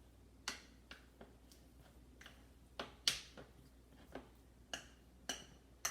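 Wet whole wheat flour dough being mixed in a bowl: a run of short, sticky clicks and squelches, about one every half second at an uneven pace.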